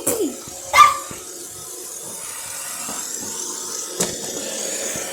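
Roomba robot vacuum running steadily with a thin high whine. A loud short cry comes about a second in, and a sharp click about four seconds in.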